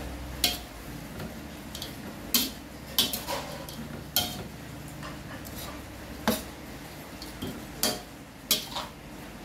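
Metal ladle scraping and clinking against a wok as grasshoppers are stirred and turned during dry-roasting, with sharp, irregular knocks every second or so over a steady low sizzle.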